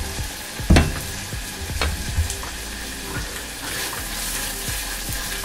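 Sliced red onions sizzling gently in olive oil in a small stainless-steel saucepan, being sweated soft without browning. A silicone spatula stirs them and knocks against the pan several times, loudest about a second in.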